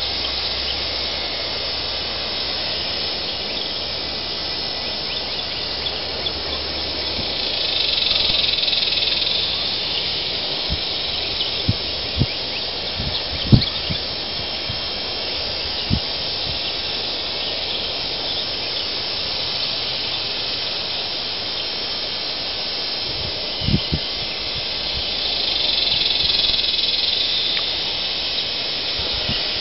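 Steady outdoor ambience: an even hiss with insects buzzing, their high drone swelling twice, and a few soft knocks now and then.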